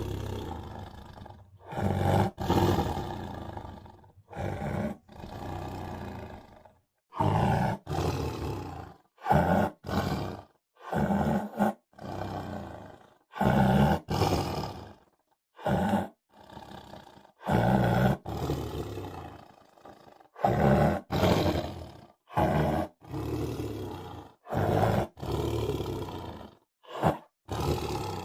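Tiger roars and growls in a rapid string of short separate clips. Each is cut off abruptly, with brief silences between.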